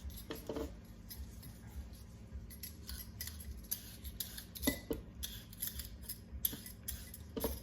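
A carrot being peeled: a run of short, sharp scraping strokes of the blade along the carrot, coming more often after the first couple of seconds.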